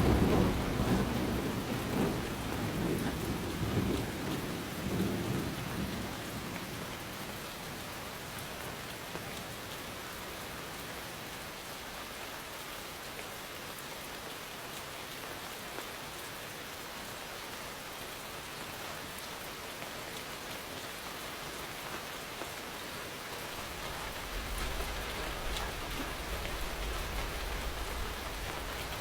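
Steady heavy rainfall with thunder: a rolling rumble fades out over the first several seconds, leaving an even hiss of rain, and a fainter low rumble of distant thunder returns near the end.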